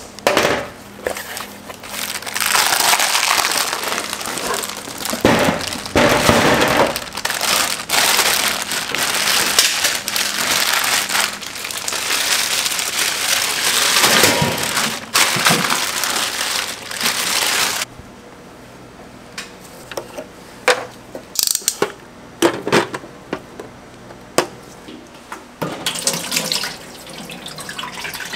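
A cardboard box opened with a box cutter, then a thick plastic liner bag rustling and crinkling loudly as a block of solid frying fat is pulled out of it. The rustling cuts off suddenly about two thirds of the way in, leaving quieter handling with scattered clicks and knocks against the steel fryer.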